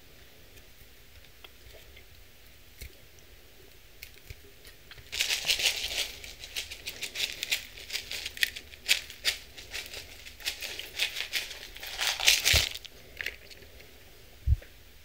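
Crunchy salad topping shaken out of a clear plastic cup onto a salad: a dense crackle and patter of crisp bits hitting the greens and rattling in the plastic. It starts about five seconds in and ends with a louder last shake. A single low thump follows near the end.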